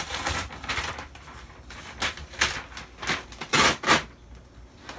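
Sheet of butcher paper being handled and rustled, with a few sharper crinkling swishes, the loudest pair near the end.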